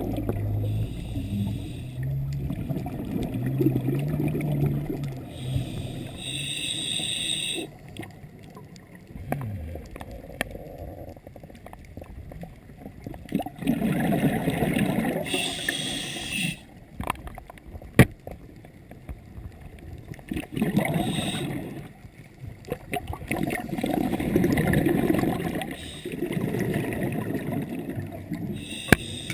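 Scuba diver breathing through a regulator underwater, heard through a camera housing: a short hissing inhalation about every nine seconds, and between them gurgling bubble bursts on each exhale.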